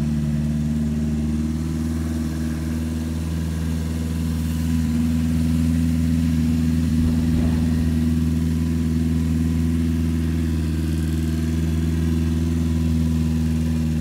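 Portable fire pump's engine running steadily, getting a little louder about four and a half seconds in and holding there.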